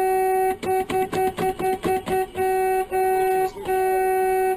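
Car horn honking on one steady pitch: a long blast, then a quick run of about eight short taps, then three longer blasts.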